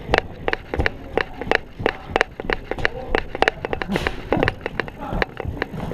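Quick footsteps of a player moving into the field, about three steps a second, with a short rustling hiss about four seconds in.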